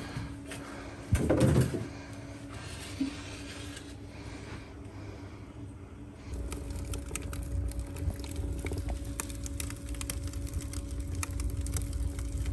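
A brief loud rustle of hands in a cardboard box about a second in; then, about halfway through, paper kindling catches in a stove, with a low rumble and faint crackling from the flames.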